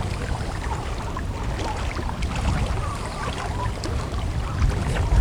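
Strong wind buffeting the microphone in a low rumble, over the wash of choppy waves.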